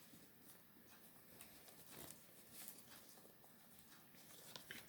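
Near silence, with a few faint clicks and rustles of a plastic CD jewel case and its disc being handled.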